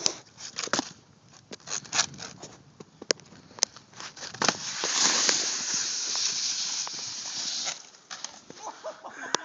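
A snowboard sliding off over snow: a few clicks and knocks, then a steady hiss of the board running over the snow for about three seconds, which stops near the end.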